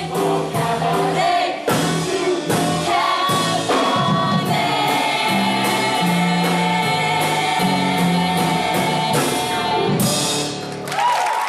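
A stage-musical cast singing together as an ensemble with band accompaniment and a steady beat. The music fades out near the end.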